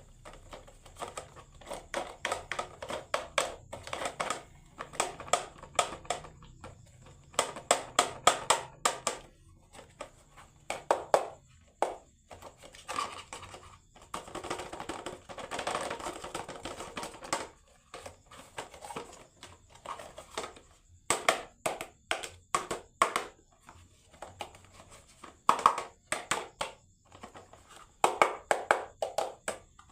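Marbles rolling and clacking down a wooden HABA marble run: quick runs of clicks and rattles, with a longer continuous rolling rattle in the middle.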